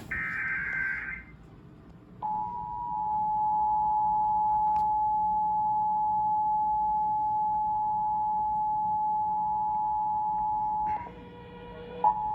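Emergency Alert System broadcast signal from a TV. It opens with the last screechy SAME digital header burst, lasting about a second. After a short gap, the steady two-tone EAS attention signal (853 and 960 Hz) starts about two seconds in. Near the end the two-tone drops out for about a second, replaced by a different buzzy tone, then resumes.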